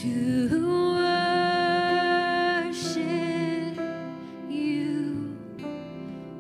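A woman singing long, held notes in a slow, gentle worship song, accompanied by acoustic guitar and keyboard, with a short breath between phrases about three seconds in.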